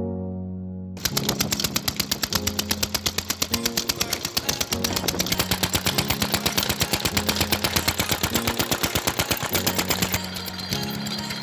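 Single-cylinder stationary diesel engine running under load, driving a water pump by a flat belt, with a fast, even chug that cuts in about a second in. Piano music plays over it.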